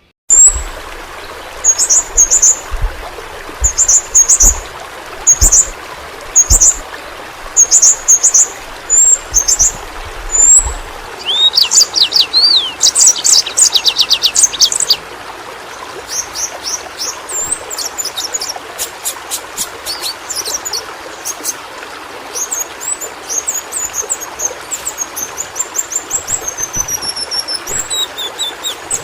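A yellow-rumped flowerpecker (pentis pelangi) singing. High, thin chirp phrases come about once a second, then around the middle a fast trill of rapid falling notes, followed by quick ticks and twittering runs. A steady hiss runs underneath.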